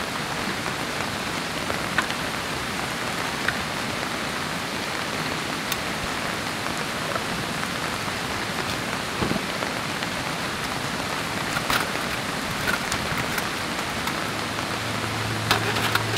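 Heavy rain pattering steadily on a tarp, with a few light clicks and taps of metal camp cookware: an aluminium mess tin and a folding metal windscreen being handled.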